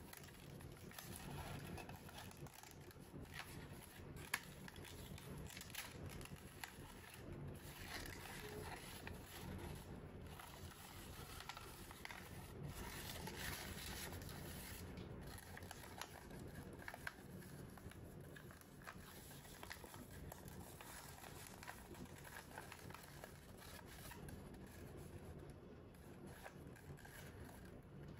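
Faint rustling and crinkling of origami paper being handled and folded, with small scattered taps and creasing sounds.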